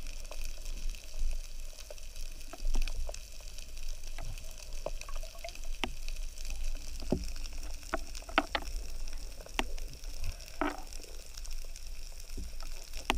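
Underwater sound picked up by a submerged camera: a steady low water rumble with scattered sharp clicks and knocks, and one short rushing burst near the end.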